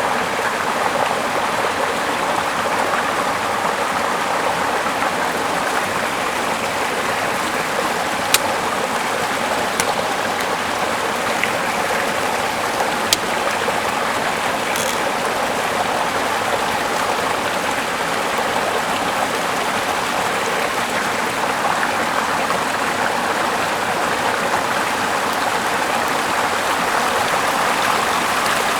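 Running water flowing steadily, with a few brief faint clicks.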